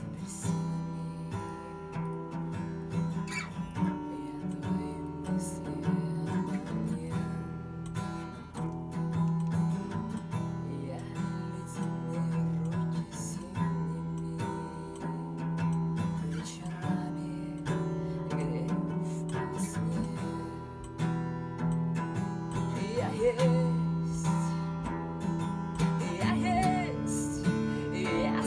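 Acoustic guitar strummed and picked as a steady chord accompaniment, played live. A woman's singing voice comes in over it in the last few seconds.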